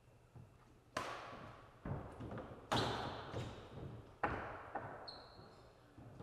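Badminton rally: four sharp racket-on-shuttlecock hits about a second apart, each ringing on in an echoing hall. A short high squeak follows near the end.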